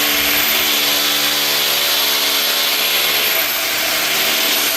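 An electric power tool's motor running steadily at constant speed, with a loud hiss over a steady hum.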